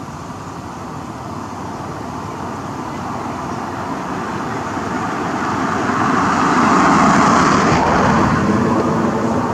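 A motor vehicle driving past, its engine and tyre noise growing steadily louder to a peak about seven seconds in, then starting to fade.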